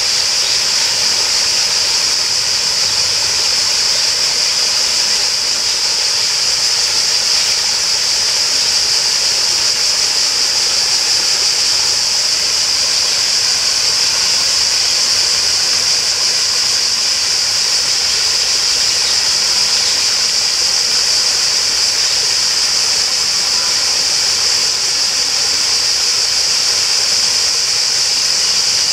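Flowing water running steadily, with a constant high-pitched hiss over it.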